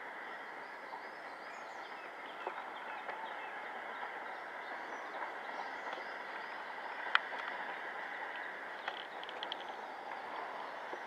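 J72 0-6-0T steam tank locomotive working a passenger train, heard from a distance as a steady noise. Birds chirp over it, and there is a single sharp click about seven seconds in.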